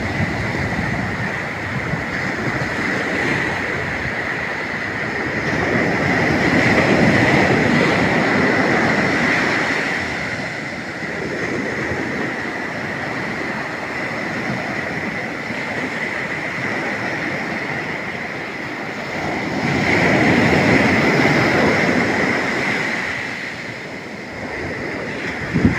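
Ocean surf on a beach: a steady rush of waves that swells louder twice as waves break, then eases off.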